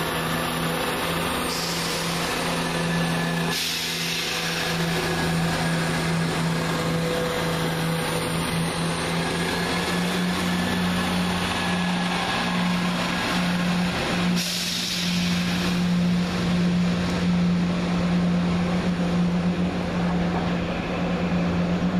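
Class 170 Turbostar diesel multiple unit's underfloor diesel engines running with a steady hum as the train departs. Two short hisses of air, like air brake releases, come about a second and a half in and again about fourteen seconds in.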